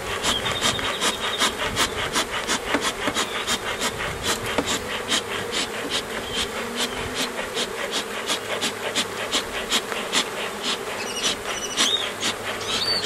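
A honeybee colony buzzing around an opened hive, a steady hum. A rapid, even ticking of about four or five clicks a second runs along with it.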